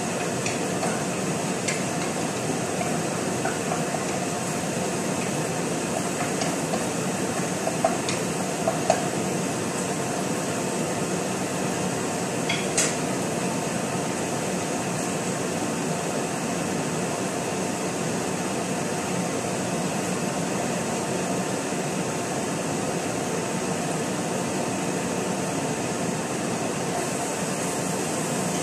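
Wooden spoon stirring in a pot on a gas stove, knocking against the pot several times in the first dozen seconds, over steady background noise.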